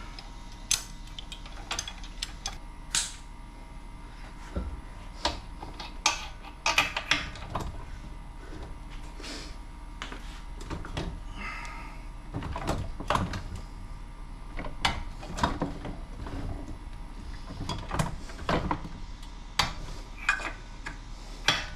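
Irregular light metallic clicks and taps of hand tools working on a small engine while it is taken apart, some coming in short quick runs.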